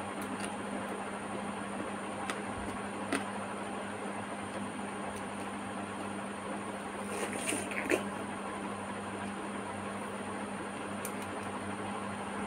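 Steady background hum and hiss, with a few short wet clicks of watermelon being bitten and chewed, bunched together just past the middle.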